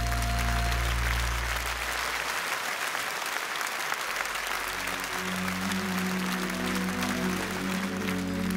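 Audience applauding in a large hall after a song, over the song's final held chord, which dies away in the first two seconds or so. About five seconds in, soft sustained music of the next number begins under the clapping.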